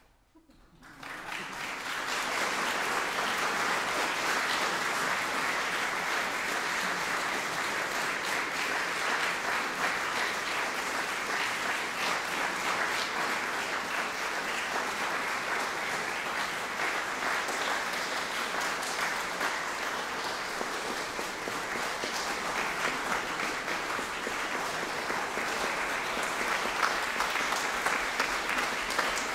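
Concert audience applauding. The clapping starts about a second in and swells within a second or two to a steady level.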